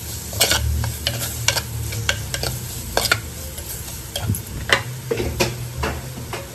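Steel spoon stirring and scraping against the inside of an unglazed clay pot (mann chatti), tossing a sizzling onion-tomato masala with chilli powder. The scrapes come irregularly, about a dozen sharp strokes, over a faint sizzle.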